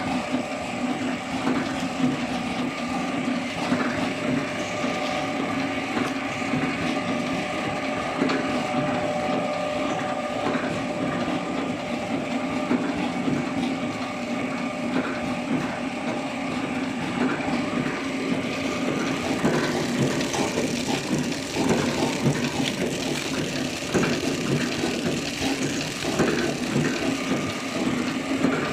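Horizontal flow-pack packaging machine running steadily: a constant hum with irregular clicks and knocks throughout.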